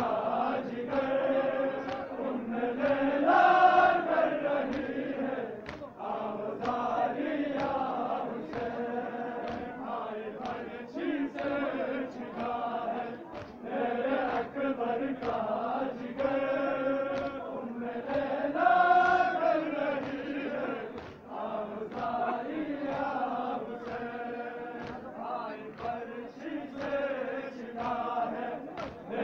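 Large crowd of men chanting together in a repeating melodic phrase that swells twice, with many sharp slaps sounding through it.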